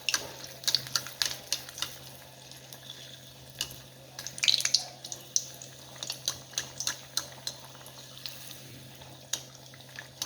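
Stuffed rajgira-flour kachori deep-frying in hot oil: a steady sizzle with irregular pops and crackles, a denser burst of crackling about four and a half seconds in. A steady low hum runs underneath.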